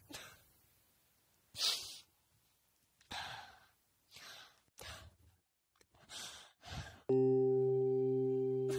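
A crying woman's short sniffling, sighing breaths, several in a row with pauses between. About seven seconds in, a low sustained musical chord starts and slowly fades.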